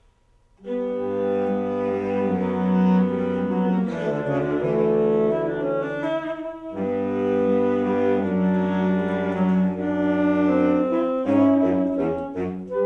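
Saxophone section of alto, tenor and baritone saxophones playing sustained chords together with violin, cello and bass, coming in all at once about half a second in. The held chords break off briefly a little past the middle, then resume, with the notes shifting quickly near the end.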